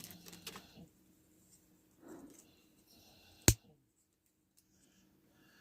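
Faint rustling as a small item is handled out of its plastic packaging, then a single sharp click about three and a half seconds in.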